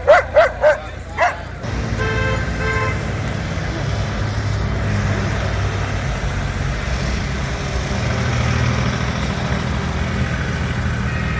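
A dog barks several times in quick succession, stopping about a second in. A tractor engine then runs with a steady low rumble that swells slightly later on. A short horn-like toot sounds about two seconds in.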